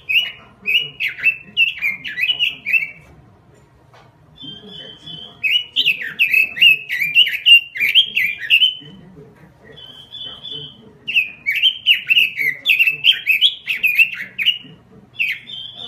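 Pekin robin (red-billed leiothrix) singing: three bouts of rapid warbled phrases, each a few seconds long, with short pauses between them and a brief level whistled note leading into the second and third bouts.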